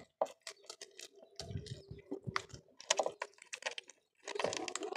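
Cat chewing raw meaty bones: quick, irregular crunching and crackling clicks, with a denser run of crunching near the end.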